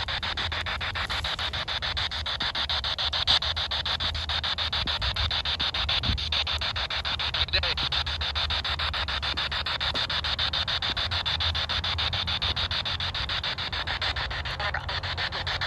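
P-SB7 Spirit Box sweeping the FM band: steady radio static chopped into rapid, even clicks as it steps from frequency to frequency.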